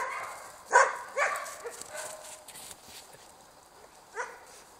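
Jämthunds (Swedish Elkhounds) barking: a few sharp barks in the first second and a half, then quieter, with one more bark near the end.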